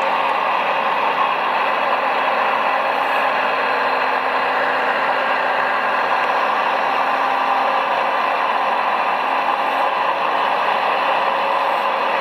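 Steady whirring hum of radio-controlled model construction machines running, with their motors and gearing held at an even pitch and no sharp knocks.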